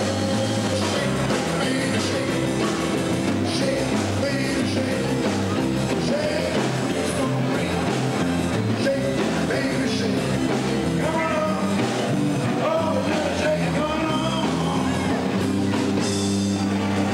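Rock and roll music with a singer, over a bass line stepping from note to note and a steady beat.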